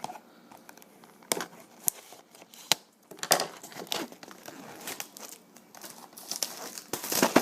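Plastic shrink-wrap being torn and crinkled off a sealed trading-card box: irregular sharp crackles and rustling, loudest near the end.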